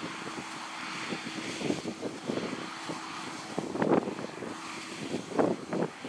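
Claas Tucano 560 combine harvester running as it cuts barley: a steady mechanical drone with a constant hum. Irregular bursts of rumble ride over it, loudest about four seconds in and again about five and a half seconds in.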